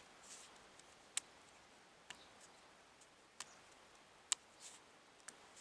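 Royal Enfield 550 UCE piston being pressed by hand and rocked in its cylinder bore, clicking about five times at irregular intervals of roughly a second as it tips against the cylinder wall. The clicks come from excessive slop and slack between piston and bore, the cause of this engine's heavy piston slap.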